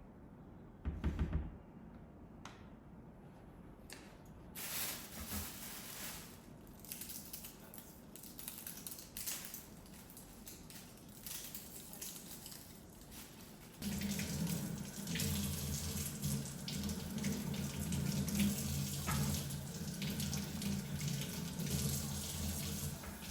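Kitchen tap running into the sink, after a short knock about a second in; from about halfway through the flow gets louder and steadier.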